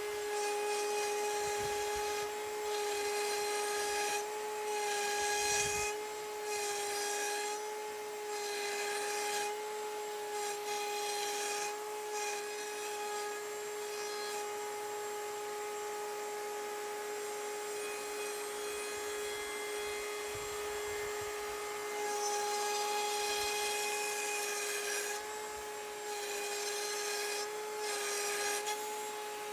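Table-mounted router running with a steady high whine while its bit cuts into a wood panel that is turned on a pivot peg, the cutting noise rising in repeated stretches of a second or two as the panel is rotated into the bit.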